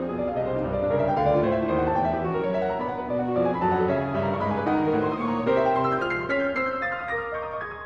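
Background piano music, many notes played in quick succession.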